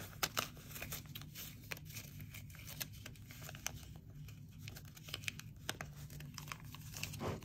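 Paper dollar bills rustling and crinkling as they are shuffled and straightened in the hands, with many scattered crisp little snaps.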